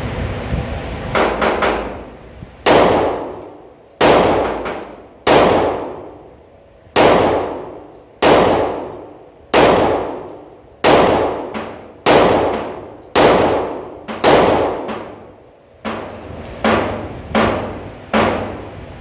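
Glock 20 10mm Auto pistol fired one-handed in a steady string of about ten shots, one every second and a bit, each sharp crack ringing off in a long echo. A few quieter shots come in between, near the start and toward the end.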